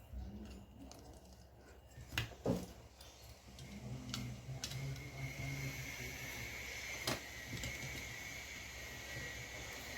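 Small clicks and knocks of tools and parts being handled during laptop disassembly, with a faint steady high whine that sets in about five seconds in.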